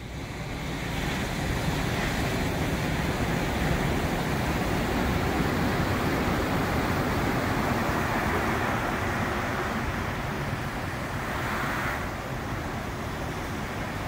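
Surf breaking along the shore: a steady rushing wash of waves, fading in over the first second and easing a little about twelve seconds in.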